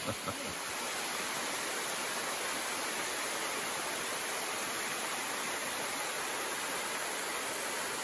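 Waterfall and cascade of a mountain creek: water rushing steadily over rock ledges, a constant even roar.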